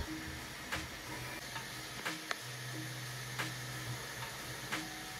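Bambu Lab A1 Mini 3D printer running its pre-print calibration: a steady fan hiss, with short stepper-motor tones as the print head and bed move. A lower motor tone holds for about a second and a half in the middle, and a few sharp clicks sound along the way.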